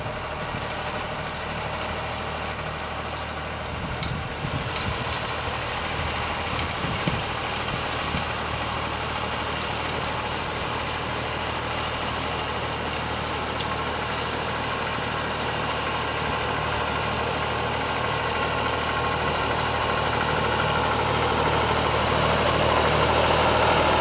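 Vintage Massey Ferguson tractor engine running steadily under load as it pulls a reaper-binder through standing wheat. It grows louder as the tractor approaches.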